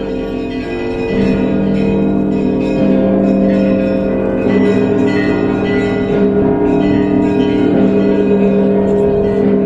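Russian Orthodox church bells rung together in a peal. Many bells ring at once, with a deep bell struck about every second and a half to two seconds under the smaller ones.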